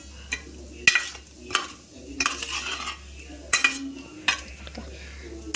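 Stainless steel plate clinking and scraping as paneer cubes are stirred and mixed in it, with a few sharp clinks against the metal.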